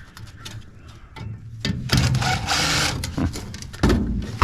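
Cordless drill running for about two seconds, backing a screw out of a golf cart charger's case, then a sharp knock near the end.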